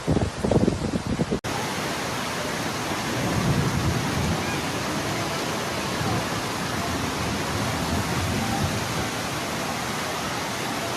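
Heavy rain pouring down in a storm, a steady rushing hiss. For the first second and a half there are low rumbling surges, then the sound cuts abruptly to the steady downpour.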